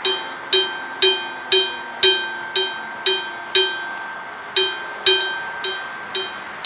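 Electric-bell (denrei-shiki) railway crossing bell ringing its warning of an approaching train: a hammer strikes the metal bell about twice a second, each stroke ringing on, with one stroke skipped partway through.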